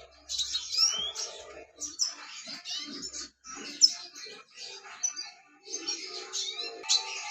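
Young red siskin twittering: quick, high chirps and trills in bursts, with short pauses between them.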